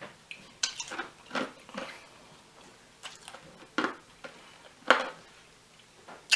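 Ice being crunched between the teeth: a run of short, sharp, irregular crunches, several close together in the first two seconds, then single crunches spaced about a second apart.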